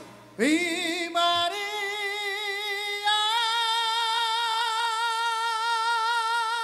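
Male lead singer's voice, unaccompanied, sliding up into a note and climbing in steps to a long high note held with vibrato for several seconds.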